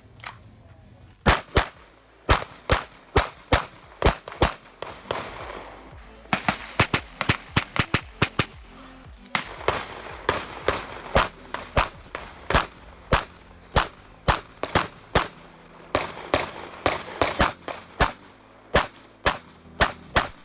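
Sig P320 pistol in .40 caliber firing rapid strings of shots, many in quick pairs, with short pauses between strings as the shooter moves or reloads.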